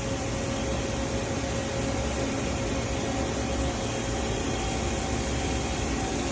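CNC lathe running steadily: a constant mechanical hum and hiss with a few faint steady whining tones, with no starts or stops.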